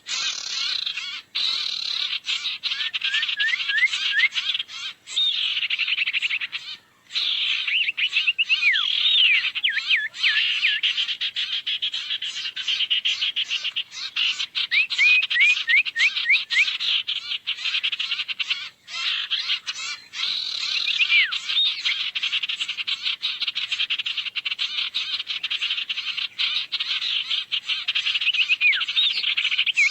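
Lure-call recording of the bird called 'sirtu' (burung sirtu): a continuous, rapid buzzy chatter with clusters of quick sweeping whistled notes, broken by a few brief pauses.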